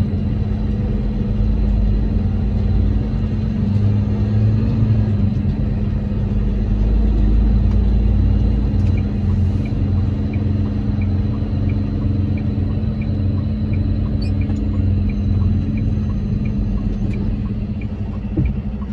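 Steady low rumble of a truck's engine and road noise, heard from inside the cab while driving. A light, regular ticking joins it about halfway in.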